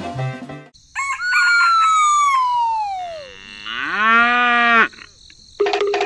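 Farm-animal sound effects: a rooster crowing, a long call that falls in pitch, then a cow mooing, a lower call that rises and then holds. Background music plays at the start and comes back near the end.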